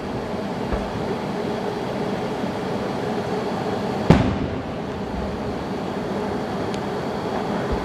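Fireworks bursting: one loud, sharp bang about four seconds in that rings out briefly, with fainter thumps near the start and near the end, over a steady background rumble.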